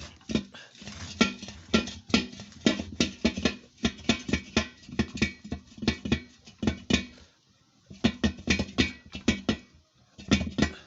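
A loose tire, its bead broken off the rim, being twisted around its wheel by hand: a quick, irregular run of rubber-on-metal knocks, scrapes and squeaks, with a short pause near the middle.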